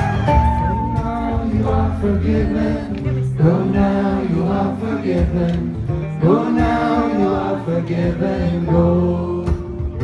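Live acoustic band music, with acoustic guitars, banjo, upright bass and fiddle playing under sung lines carried by several voices.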